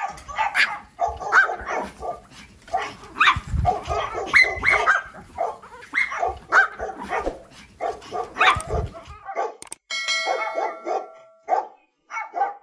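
Several Pomeranians barking excitedly, fast overlapping yaps for about nine seconds. After a brief drop, a different set of barks comes in shorter, spaced bursts.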